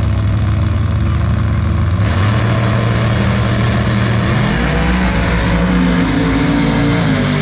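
Drag race car engines running loud and revving, their pitch climbing and shifting from about halfway through.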